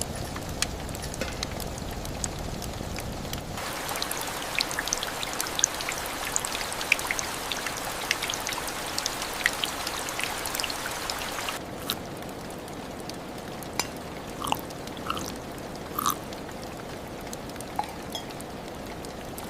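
Rain falling, with many close drops pattering and dripping. It gets heavier a few seconds in, then eases near the middle to a lighter hiss with scattered single drips plinking.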